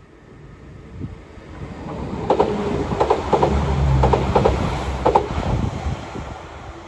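Northern Class 195 diesel multiple unit passing close by and running away. It is heard as a rising then fading rumble, with a quick run of wheel clicks over the rail joints as it goes by.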